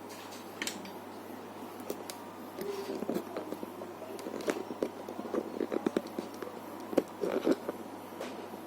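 Scattered small clicks, taps and knocks of laptop parts and tools being handled during reassembly, busier in the second half, over a steady low hum.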